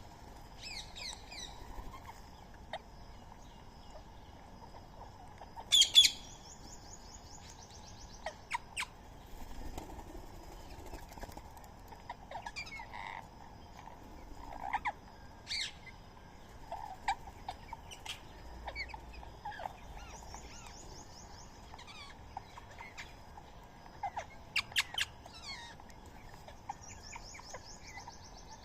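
Birds calling: scattered short, shrill calls, plausibly from Indian ringneck parrots, with the loudest burst about six seconds in. A rapid, high trill sounds twice, near the start and about two-thirds of the way through.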